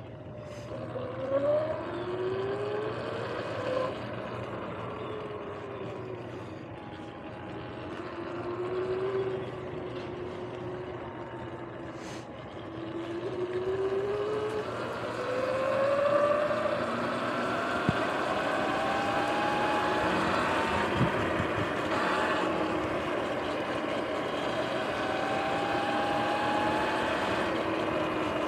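Sur-Ron X electric dirt bike under way. Its motor whine glides up and down in pitch as the bike speeds up and slows, over tyre hiss on wet pavement. It grows louder from about halfway through as the bike picks up speed.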